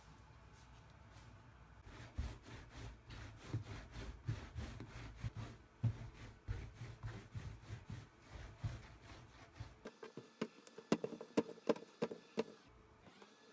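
Hands rolling a rope of simit dough back and forth on a textured metal baking tray: an uneven rubbing and patting. Near the end comes a quick run of sharp light taps and clicks as the ropes are handled and twisted on the tray.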